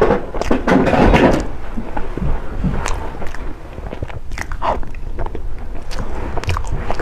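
Close-miked mouth sounds of eating soft taro-paste lava cake: a dense, wet stretch of biting and chewing in the first second and a half, then scattered chewing clicks and lip smacks.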